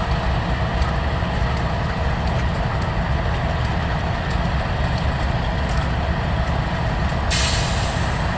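A freight train rolls past with a steady low rumble and faint irregular clicks. A sudden hiss starts about seven seconds in and lasts about a second.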